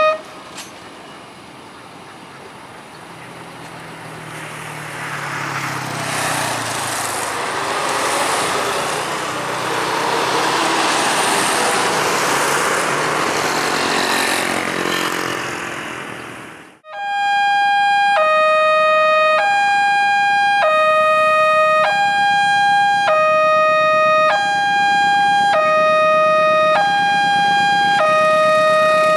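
A passing train's rolling noise swells and fades. About halfway through it cuts to a railway level-crossing warning alarm, an electronic chime switching between a higher and a lower tone about once a second, which sounds as a diesel-hauled train approaches.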